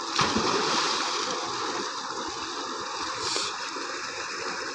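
Tubewell water gushing steadily into a concrete tank, with a loud splash about a quarter of a second in as a swimmer dives in, and a shorter splash about three seconds in.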